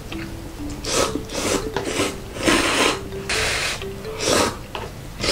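Instant cup ramen noodles being slurped with chopsticks in repeated noisy slurps, about one a second, the loudest about halfway through.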